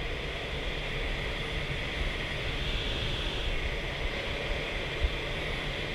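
Steady rush of air over an unpowered ASK 13 glider's canopy, heard from inside the cockpit, with a hiss and a low rumble, as the glider flies its landing approach at 60. A single short knock about five seconds in.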